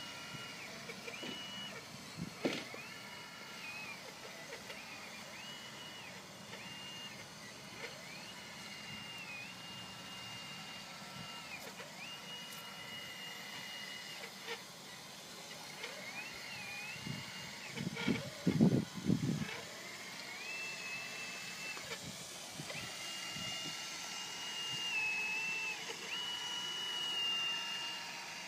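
The electric drive of a Premacon Liebherr 576 radio-controlled model wheel loader whines high as it drives back and forth. With each run the whine climbs to a steady pitch, holds, and drops away as the model stops. A few loud low thumps come about two-thirds of the way through.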